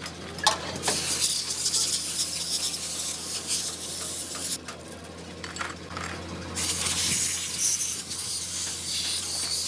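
Scraping and rubbing on metal pump parts by hand, a hissing rasp with a few sharp clicks, over a steady low hum.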